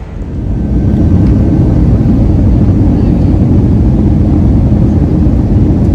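Loud, steady low noise like a moving vehicle, building up over the first second and then holding steady.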